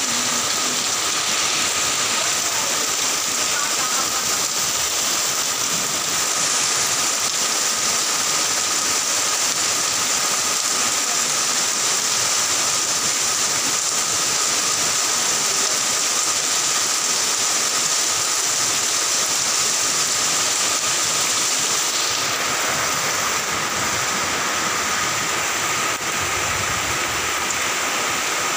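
Heavy rain pouring down: a steady, loud hiss.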